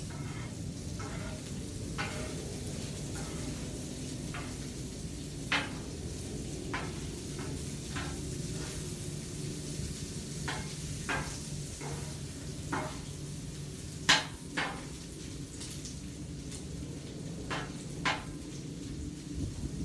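Butter sizzling and foaming on a hot steel flat-top griddle, with scattered sharp pops and crackles, the loudest about fourteen seconds in, over a steady low hum.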